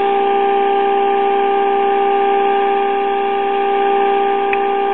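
Steady test tone from a 455-kilocycle signal generator, heard through the speaker of a 1946 Kitchenaire five-tube AM radio during IF alignment. The tone's loudness is the guide for peaking the IF transformers. A faint click comes near the end.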